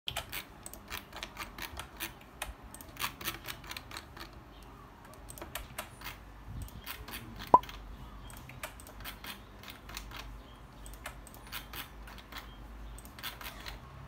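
Faint, irregular tapping of keys on a computer keyboard, mixed with mouse clicks. About seven and a half seconds in there is a single short rising squeak.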